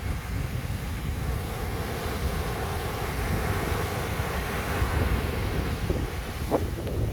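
Sea surf washing on a beach, a steady rush of waves, with wind buffeting the microphone in a low rumble.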